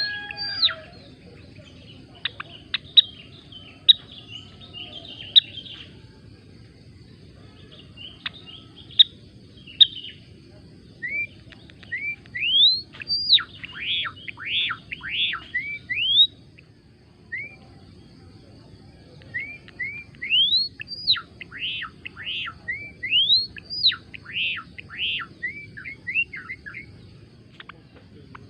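A gelatik belong songbird calling in bouts of quick chirps and whistled sweeps, some rising and some falling sharply, often three or four a second, with pauses between bouts. A steady low background rumble runs underneath.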